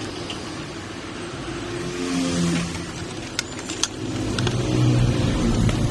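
A motor vehicle's engine running, growing louder about four seconds in, with two sharp clicks shortly before.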